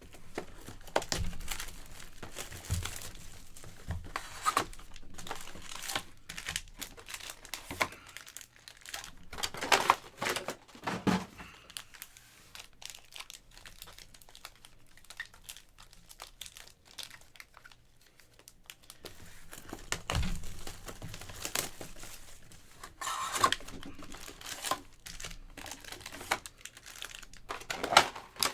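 Plastic wrapping on sealed sports card packaging crinkling and tearing by hand in irregular bursts, with a quieter stretch in the middle.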